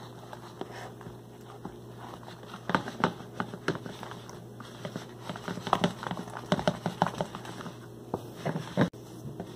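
Silicone spatula stirring a thick, wet milky mixture in a plastic tub, making irregular wet slaps and clicks against the plastic. The stirring gets busier from about three seconds in. The mixture is starting to thicken into a gel.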